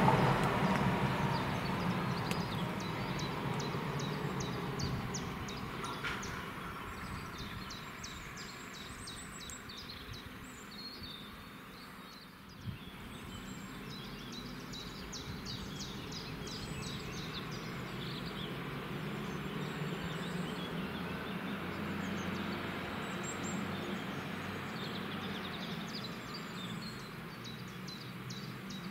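Stadler RegioShuttle diesel railcar running away from the listener, its engine drone fading over the first ten seconds or so and leaving a low hum, while songbirds chirp repeatedly. A single sharp click comes about halfway through.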